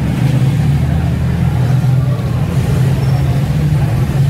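A steady low hum of running machinery, loud and unbroken.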